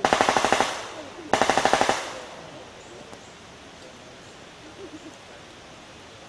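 Automatic gunfire: two bursts of rapid shots, roughly ten rounds each, the second starting about a second and a half in, each followed by a short ringing echo.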